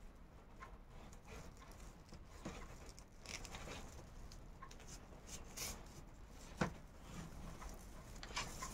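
Faint rustling of raffia paper yarn handled and pulled through as a needle and thread are worked through the stitches of a crocheted raffia handle, with scattered light ticks and one sharp click about two-thirds of the way through.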